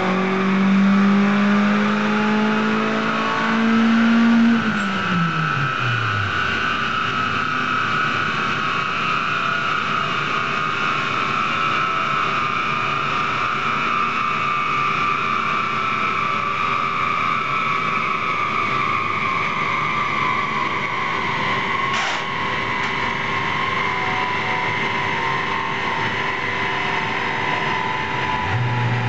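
Stage 1 remapped turbocharged Vauxhall Astra revving up under load on a rolling-road dyno, the engine note climbing for about four seconds before the throttle is lifted and the revs drop away. The rollers and driven wheels then spin down with a whine that falls slowly in pitch, with a sharp click about 22 seconds in.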